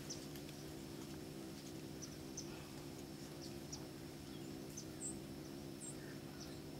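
Faint open-field ambience: scattered short, high bird chirps and ticks over a steady low hum.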